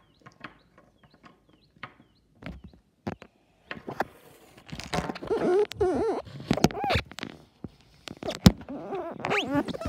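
Small clicks and taps of plastic toy figures and dollhouse furniture being handled, with one sharp knock near the end. About halfway through and again near the end, a voice makes wordless, wavering sounds.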